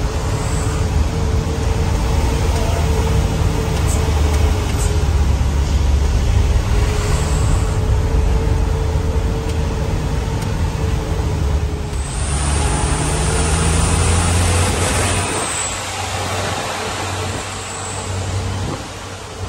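Truck's diesel engine droning, heard from inside the cab while driving, with a steady whine over it. A hiss comes in about twelve seconds in and lasts about three seconds, after which the low engine drone eases off.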